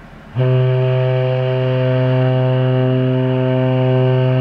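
The cruise ferry Amorella's ship horn sounding a warning signal: a single long, low, steady blast that starts suddenly about half a second in.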